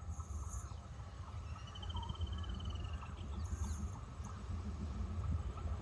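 Insects buzzing in short high bursts, once near the start and again about three and a half seconds in, and a bird's short trill about two seconds in, over a steady low rumble that slowly grows louder.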